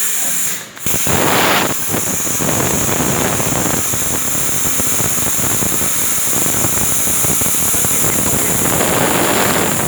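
Plasma cutter's arc cutting a hole through steel plate: a loud, rough, crackling hiss that starts about a second in and holds steady until near the end, over the steady hiss of the torch's air.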